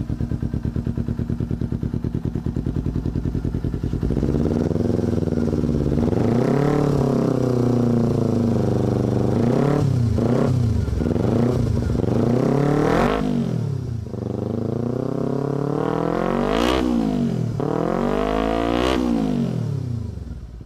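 Kawasaki Ninja 250 parallel-twin engine running through a Leovince aftermarket slip-on muffler. It idles steadily for a few seconds, then is revved in a series of throttle blips, each rising and falling in pitch, with the three highest and sharpest blips in the second half.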